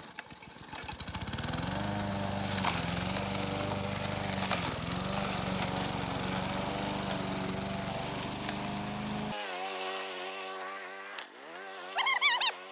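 Walk-behind gas lawn mower's small engine revving up about a second in, then running steadily under load as it is pushed through tall weeds, its pitch dipping briefly now and then. Near the end, a brief loud wavering high-pitched sound.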